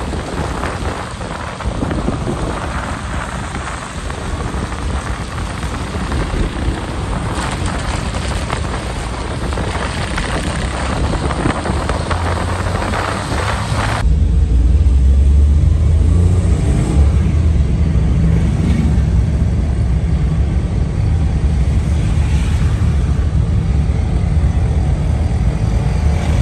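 Ride noise from a vehicle moving along a wet road: a steady hiss of tyres and wind, which cuts abruptly about halfway in to a louder, deeper rumble.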